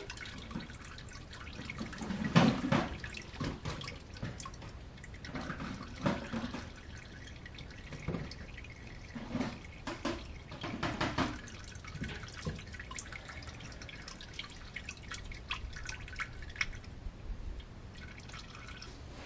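Engine oil dripping and trickling from the open drain-plug hole of a Ram EcoDiesel 3.0L V6's oil pan into a plastic drain pan: irregular drips, a few of them louder. This is the end of the drain, the oil slowing to occasional drips as the last of it works down from the heads and valve train.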